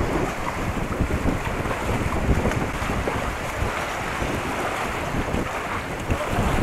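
Strong wind buffeting the microphone, a dense, continuous rumble that swells and dips with the gusts.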